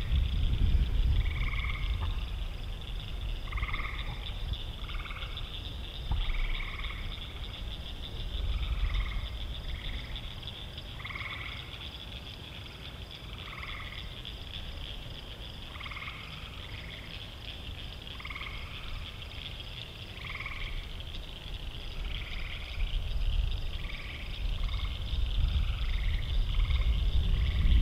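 Frogs calling: short croaks every second or so over a steady high trilling chorus, with an uneven low rumble swelling at the start and near the end.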